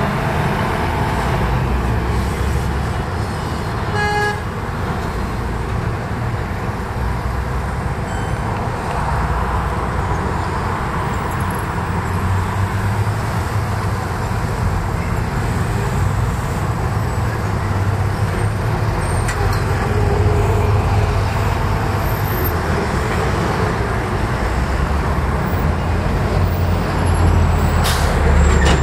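City street traffic: the steady rumble of passing motor vehicles, with one short car horn toot about four seconds in.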